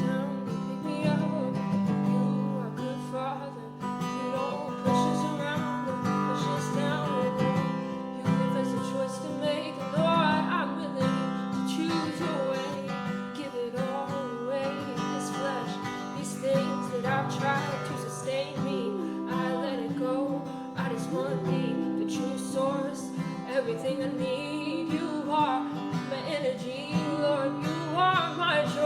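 Acoustic guitar strummed in steady chords, with a wordless vocal melody wavering over it.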